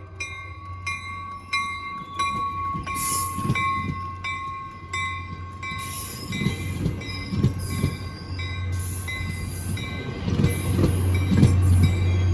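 ACE commuter train rolling into the station. Its diesel locomotive runs with a steady low hum, a bell rings about twice a second, and a thin, steady high squeal is heard through the first half. Low rumbling thuds from the wheels and cars grow in the second half.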